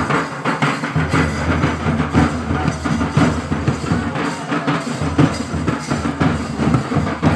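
Loud drum-led dance music with a steady, driving beat that runs without a break.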